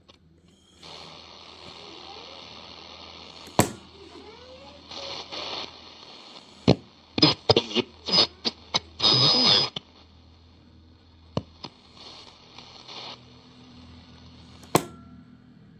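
Philips L4X-25T radio receiver hissing with static between stations while being tuned, with several sharp clicks. A loud crackling burst with a faint whistle comes about two-thirds of the way through.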